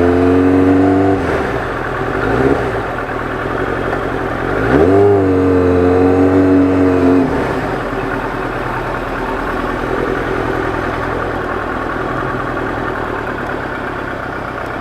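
Motorcycle engine under way: revs rise and drop between gears, with a strong pull about five seconds in held for a couple of seconds, then it settles into a steadier, quieter run with rushing wind.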